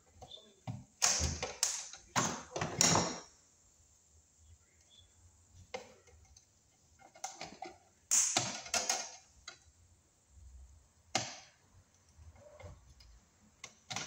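Hand wire cutters and strippers working a red 10-gauge copper wire: a few sharp snips and scrapes about a second in, another cluster about eight seconds in, and one more snap a little later, as the insulation is cut and pulled off the conductor.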